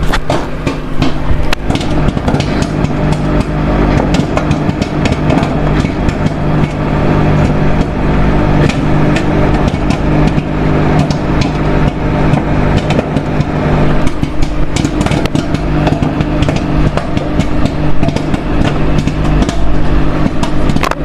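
Microwave oven running with a steady loud hum, while popcorn kernels in a puffed-up microwave popcorn bag pop inside it in scattered sharp cracks.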